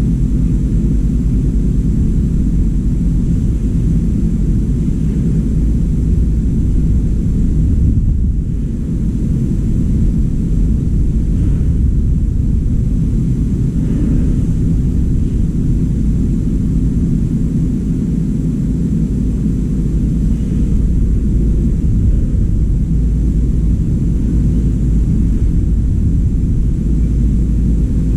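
Steady low rumble with a faint hum in it, dipping briefly about eight seconds in.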